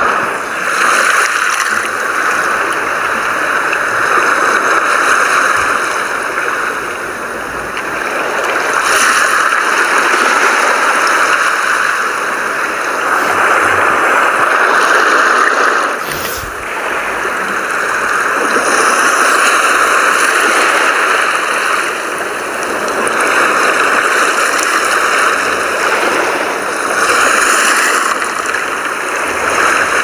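Sea surf at night: waves breaking and washing up a beach in a steady rush of water that swells and eases every few seconds. One short click about halfway through.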